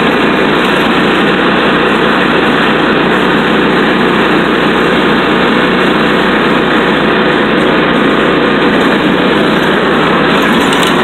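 Riding lawn mower engine running steadily while under way, heard from its own seat: a loud, even drone that holds the same pace throughout.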